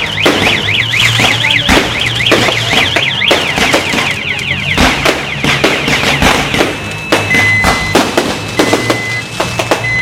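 Fireworks going off in quick succession, a rapid run of sharp bangs and cracks. Over them, for the first six seconds, a fast warbling up-and-down alarm tone sounds, giving way to short steady beeps about seven seconds in.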